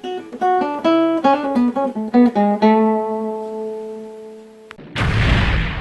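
Short plucked guitar tune of quick single notes ending on a ringing chord that slowly fades. Near the end a loud burst of rushing noise cuts in.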